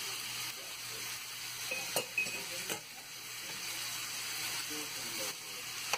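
Minced pork and sliced onion sizzling in oil in a stainless steel frying pan, stirred with a metal spoon. A few sharp clicks of the spoon against the pan come about two to three seconds in.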